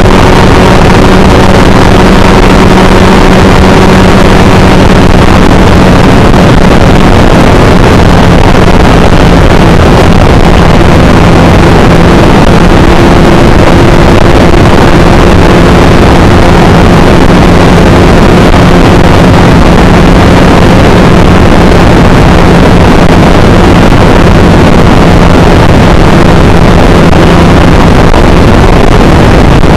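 Motorcycle engine running loud and steady at one even speed on a test run.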